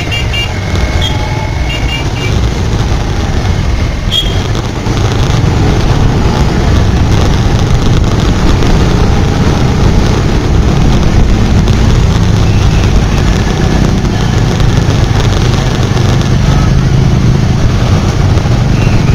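Motorbike riding through city traffic: a steady low rumble of engine and road noise, growing louder about five seconds in as the bike gets moving.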